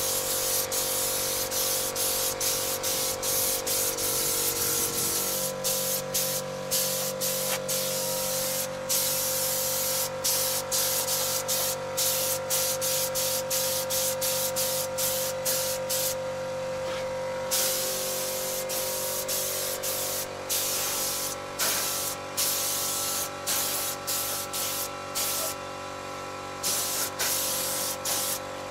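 Compressed-air hiss from a hand-held air tool on a hose, starting and stopping many times in short bursts. A steady drone of several fixed pitches runs underneath and shifts once about five seconds in.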